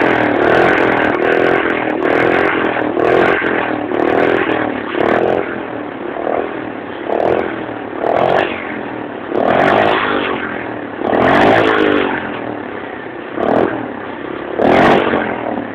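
The Z's engine revved in a series of short throttle blips, about one a second, each rising and falling in pitch over a running idle, with a couple of longer pulls past the middle.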